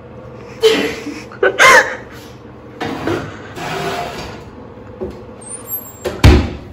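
Oven door opened and a baking tin slid onto the oven rack, with clinks and scrapes. Near the end the oven door shuts with a heavy thud.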